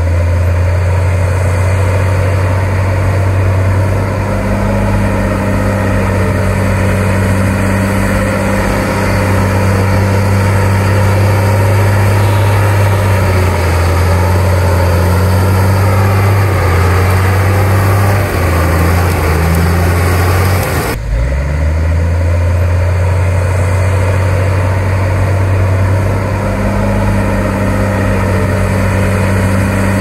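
Komatsu D53P crawler bulldozer's diesel engine running with a steady low drone, its pitch wavering up and down in the middle. The sound breaks off abruptly about two-thirds of the way through and the engine comes straight back.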